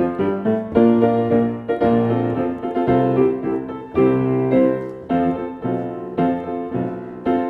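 Piano playing a piece with a steady, regular beat and a clear downbeat, several notes sounding together.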